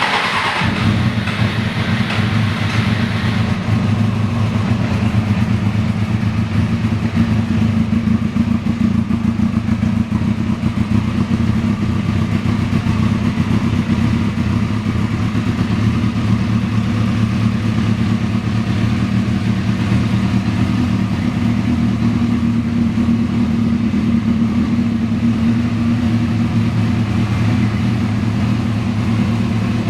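Vintage 1973 Honda CL175's small air-cooled parallel-twin engine running steadily, a bit brighter and busier in the first few seconds: a bike that had been failing to start is now running.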